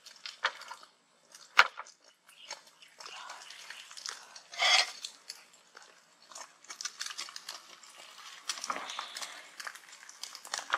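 Egg frying in a pan, crackling irregularly, with a sharp knock about a second and a half in and a short louder burst near the middle.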